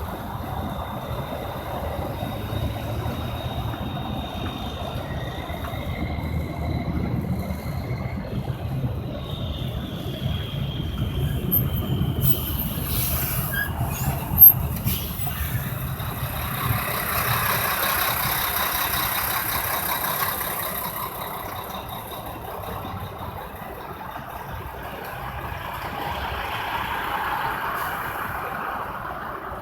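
Heavy trucks and other interstate traffic passing by: a steady low rumble that swells as vehicles go past, with a faint high whine in the first several seconds. A single sharp bang comes about halfway through, and a hissing swell follows a few seconds later.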